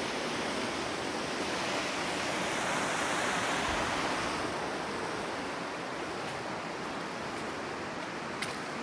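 Steady rush of flowing water from a creek or small waterfall, an even hiss with no breaks.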